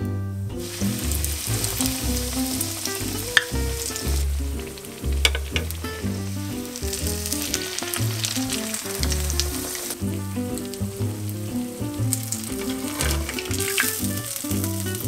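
Breaded cheese pork cutlet deep-frying in hot oil, a steady crackling sizzle that starts about half a second in, with a few sharp pops.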